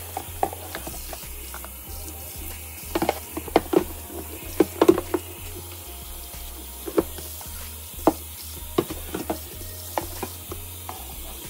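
Kitchen tap running steadily into a stainless steel sink while a plastic food container is rinsed under it, with irregular knocks and clatters as the container is handled against the sink.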